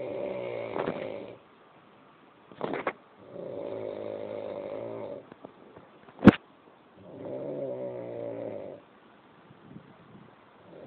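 Slow, rhythmic snoring: three drawn-out rattling snores of about two seconds each, with a short breathy sound between the first two. A single sharp click, the loudest sound, comes between the second and third snores.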